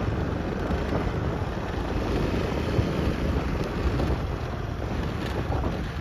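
Wind buffeting the microphone: a steady low rumble that flutters unevenly.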